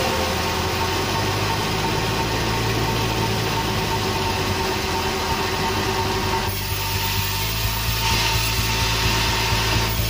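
Band sawmill running without cutting, a steady low machine hum with a rushing haze over it; about eight seconds in, a higher hiss joins.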